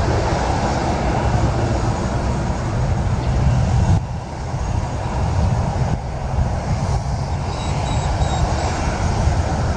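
Aircraft engines running: a loud, steady low rumble. It shifts abruptly about four seconds in, and a faint high whine comes through in the later seconds.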